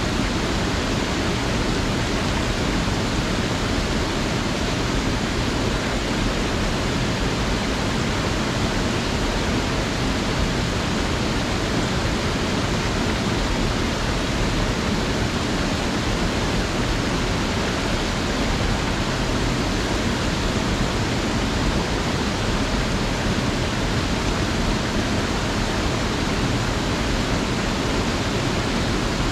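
Small mountain creek running steadily: a constant, even rush of water.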